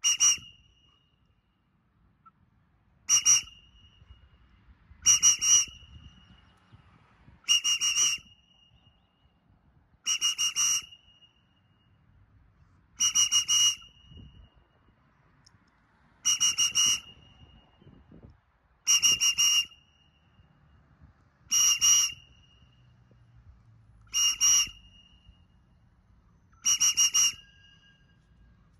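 A whistle blown in short, high blasts, eleven in all, one every two to three seconds, as a recall call to a bird flying overhead.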